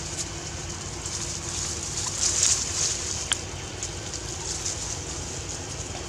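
Steady outdoor background noise with a high hiss that swells about two seconds in, and one sharp click a little past three seconds in.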